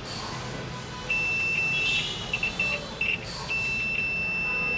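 Digital multimeter in continuity (beeper) mode sounding its high steady beep as the probes touch points on a laptop motherboard. There is a tone of about a second, a few short broken beeps as the contact flickers, then a longer steady tone near the end. The beep signals that the probed points are electrically connected.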